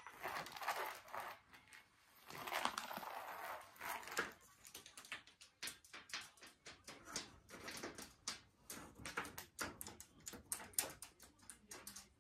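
Cat teaser wand toy swished and tapped across a tatami mat: soft rustling sweeps in the first few seconds, then a long run of quick, irregular light clicks.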